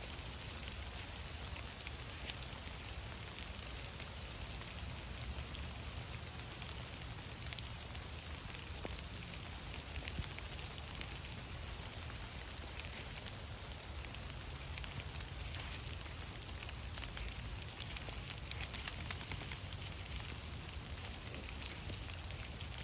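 Steady rain pattering on leaves, a fine, even crackle with a low rumble beneath. A short run of sharper clicks comes about three quarters of the way through.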